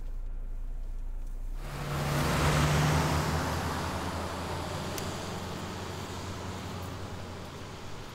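A car going by on the road, swelling to its loudest about two to three seconds in and then fading slowly.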